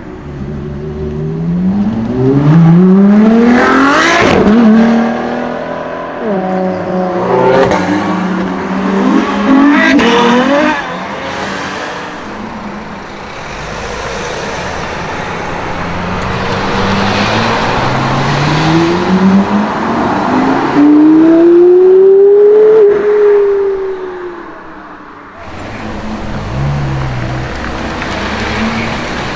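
Porsche Carrera GT's 5.7-litre V10 accelerating hard, its engine note climbing steeply and dropping at each gear change, several times over. Later there is a long rise and fall in pitch as the car runs up and then backs off.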